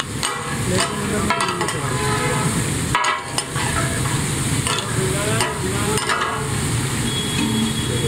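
Mutton chops frying and sizzling on a hot tawa under upturned steel bowls, with steam hissing out. Sharp metal clinks and scrapes come every second or so throughout.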